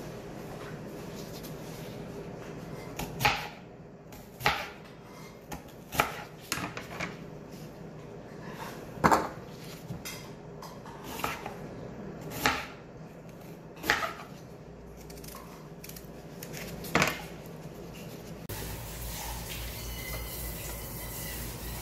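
Kitchen knife slicing an onion, the blade knocking on a plastic cutting board in separate, irregular strokes, one every second or two. Near the end a steady low hum takes over.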